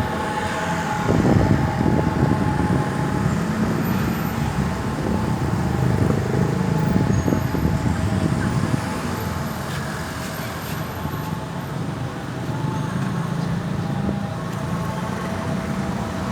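Road traffic: the steady low rumble of vehicle engines and tyres passing on a busy road.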